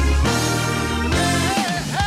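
Background music: held chords over a bass line that changes a few times, with a melodic line coming in near the end.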